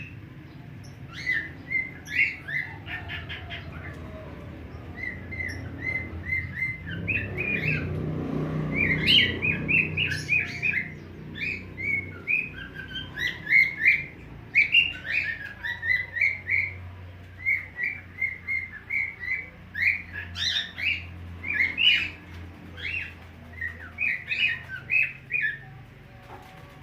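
A bird chirping in quick runs of short, high notes with brief pauses between runs.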